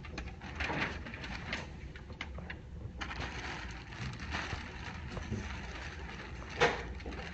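Clear plastic bag crinkling and rustling as a folded hoodie is slid into it and handled, in a run of short crackles, with one sharp, louder crackle near the end.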